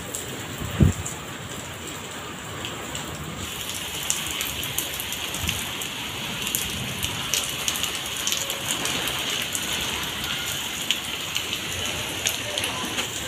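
Rain falling steadily on a concrete courtyard, with a dense patter of drops, getting a little heavier about three and a half seconds in. A single dull thump about a second in.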